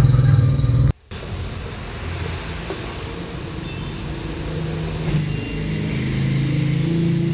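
A motor vehicle engine running steadily, a low hum with a few pitched lines that drift slightly in pitch; the sound cuts out abruptly for a moment about a second in.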